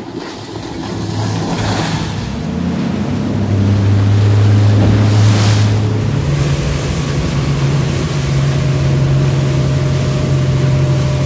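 Outboard motors running at cruising speed as boats plane through chop, with water rushing and wind noise over a steady low engine hum. Around five seconds in there is a brief rush of spray, and soon after the engine note steps up a little.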